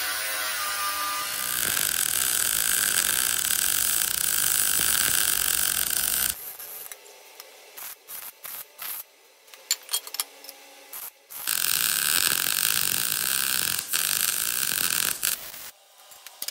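Brushless cordless angle grinder (ARCCAPTAIN AG95) grinding a steel frame for about six seconds, cutting off suddenly. Then an ARCCAPTAIN MIG205 Pro wire-feed welder lays a few short tack welds, each a brief crackling burst, followed by one steady weld of about four seconds and a couple more short tacks near the end.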